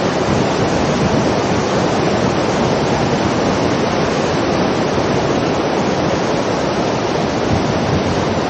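Waterfall: a loud, steady rush of falling water, an even noise without pitch or rhythm.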